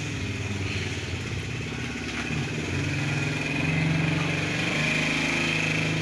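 A small engine or motor running steadily with a low hum, shifting slightly in pitch and getting a little louder partway through.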